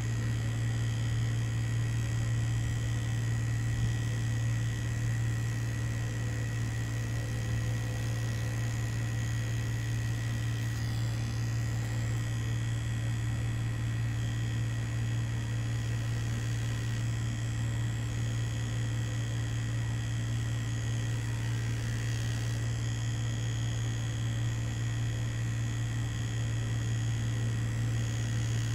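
Mummy Anubis tattoo machine buzzing steadily as it runs, driving the needle through a continuous pass.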